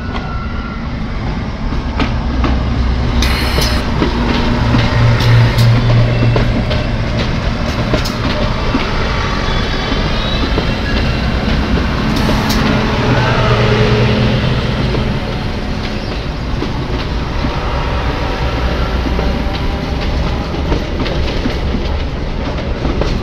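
Inca Rail diesel passenger train passing close by: a low engine rumble swells and eases as the cars go past, with wheels clicking over the rail joints. A few brief high squeals come from the wheels on the curve about halfway through.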